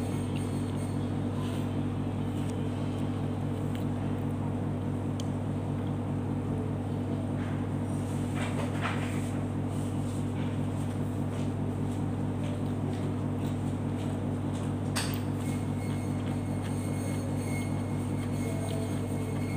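A steady low hum of several fixed pitches, with a few faint brief clicks and taps from a spoon and fork working in a bowl of noodles.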